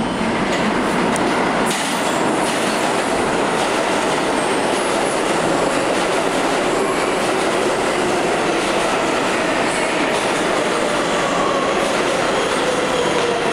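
An R142A subway train pulling into the station and running past close by: a loud, steady rush of wheels on rail, with a falling whine in the second half as it slows.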